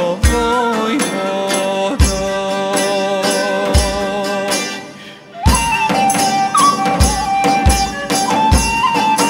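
Serbian ethno band playing a traditional folk song: bowed strings and a deep drum beat, with jingling hand percussion on top. The music thins out briefly about five seconds in, then comes back with a flute (kaval or frula) carrying a high, held melody over the drum.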